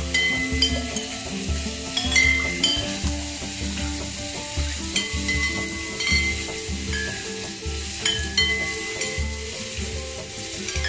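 Bowls floating on water drift into one another and clink, each clink ringing briefly with a clear high tone at irregular moments about once a second. Under the clinks are a steady watery hiss and dull low thuds.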